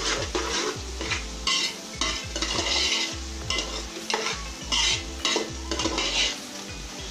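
Chopped vegetables frying in oil in a large aluminium pot, sizzling while a metal spoon stirs them and scrapes the pot in repeated strokes.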